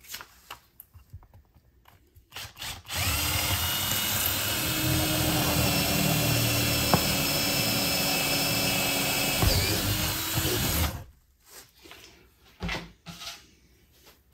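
Cordless drill with a large bit running steadily for about eight seconds, boring through foam board and plywood, then stopping. A few small knocks come before and after it.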